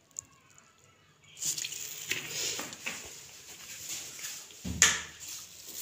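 Vinegar trickling from a glass bottle onto a plate of ground spices, starting about a second and a half in. A single knock just before the end.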